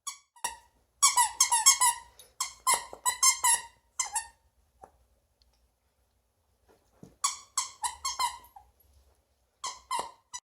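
Squeaky toy bunny being chewed by a dog, squeaking in quick runs of short, high squeaks. There is a pause of about three seconds in the middle, then more squeaking.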